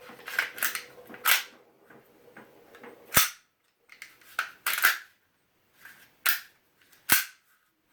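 Gas-blowback airsoft M&P 9c replica pistol being reassembled: its slide and parts clicking into place in about eight sharp, separate clicks, the loudest a little after three seconds and near the end.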